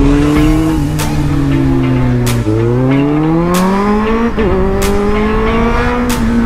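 2013 Kawasaki Z750's inline-four engine accelerating through the gears. The pitch climbs, drops at an upshift about two and a half seconds in, climbs again, dips briefly at another shift a little past four seconds, then holds steady. Music with a slow, regular beat plays over it.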